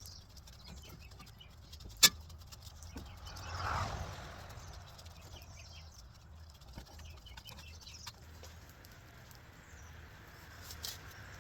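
A vehicle passing, swelling and fading about three to four seconds in, over a low steady rumble of road traffic, with one sharp click about two seconds in.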